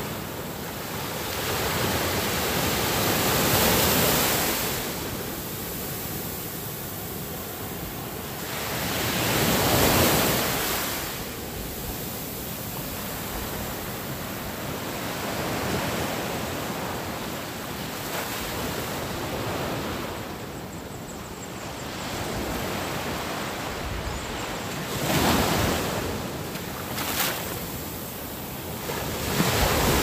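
Sea surf on a sandy beach: waves breaking and washing up the shore in a steady rush that swells every several seconds, loudest about 4, 10 and 25 seconds in.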